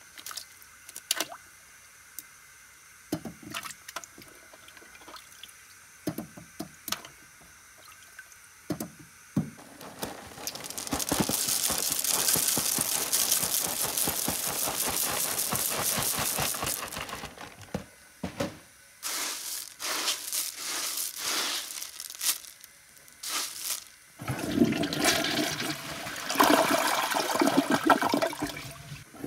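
Scattered small clicks of bits dropping into a toilet bowl. Then a loud, steady rattling rush as Froot Loops cereal is poured from its box into the bowl, for about six seconds. About five seconds before the end a toilet flushes, with water rushing and swirling down the drain.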